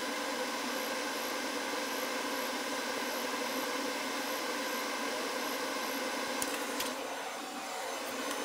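Hot air rework station blowing a steady hiss as a chip is soldered onto a circuit board, with a couple of sharp clicks a little after six seconds in.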